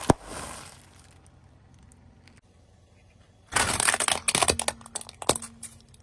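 A car tyre rolls onto a sealed bag of chips, which bursts with a sharp pop and a brief crinkle. About three and a half seconds in, a small plastic toy motorcycle cracks and snaps apart under the tyre in a quick run of sharp cracks lasting about two seconds.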